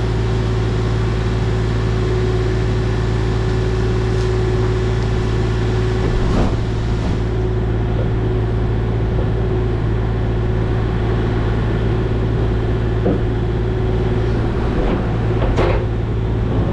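A diesel engine of heavy excavation machinery runs steadily with a constant low drone, and a couple of short knocks are heard about six seconds and fifteen seconds in.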